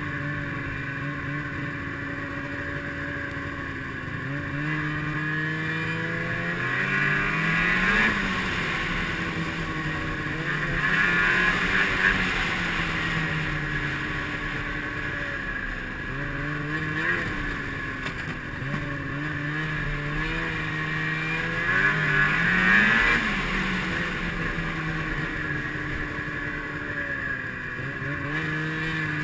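Snowmobile engine under way on a trail, its pitch rising and falling about four times as the rider gets on and off the throttle, over a steady hiss from the track and the ride.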